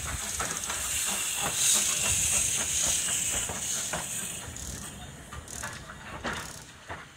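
Small narrow-gauge steam locomotive running slowly past close by, steam hissing loudly over irregular clanks and knocks from its wheels and motion. The hiss is loudest about two seconds in and fades as the engine draws away.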